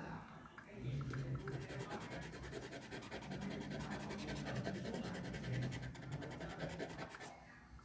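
A pen scratching on a small square of paper in rapid short strokes as a drawing is coloured in.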